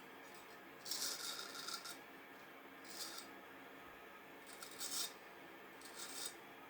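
Vintage straight razor shaving stubble in a shave test of its restored edge: four short scratchy strokes of the blade across the skin, the first about a second in and the longest, with quiet pauses between.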